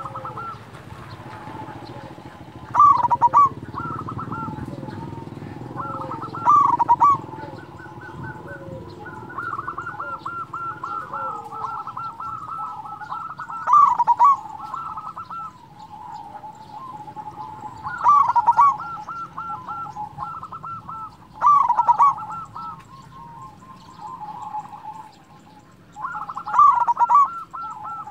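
Zebra dove (perkutut) singing its staccato cooing song: six loud phrases a few seconds apart, with softer rapid cooing notes running between them.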